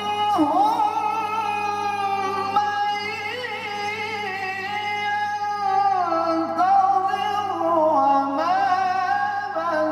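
A male qari reciting the Quran in the melodic tilawah style: one long unbroken phrase, the voice held and ornamented with pitch turns rising and falling.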